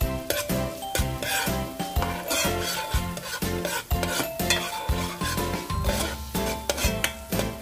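Chopped onions and chillies sizzling in butter in a hot wok while a spatula stirs and scrapes them around the pan, with background music.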